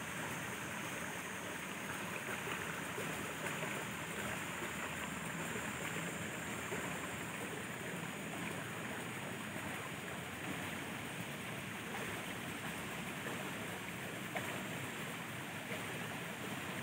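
Steady rush of water flowing along a concrete channel.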